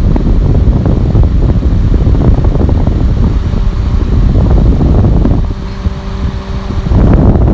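Wind buffeting a phone microphone outdoors: a loud, uneven low rumble. It eases for a moment about five and a half seconds in, and a faint steady hum shows beneath before the rumble returns.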